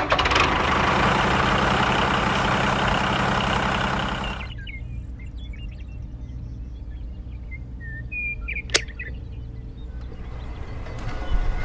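Small electric motor and gears of a miniature toy tractor running loudly, cutting off abruptly after about four and a half seconds. Then a quieter stretch with a few faint bird chirps and one sharp click.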